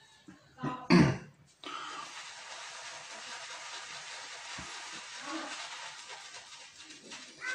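A single cough about a second in, then steady bristly swishing of a shaving brush working lather onto the cheek and beard.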